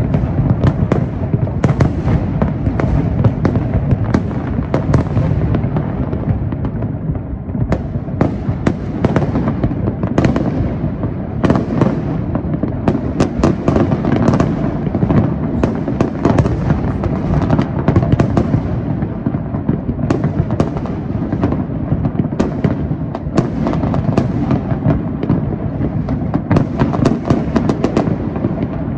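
Large fireworks display: a dense, unbroken barrage of shell bursts and crackling, many bangs a second over a steady low rumble.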